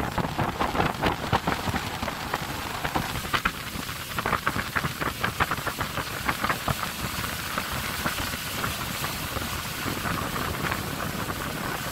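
Motorboat running at speed: wind buffeting the microphone and rushing water crackling over a low engine rumble.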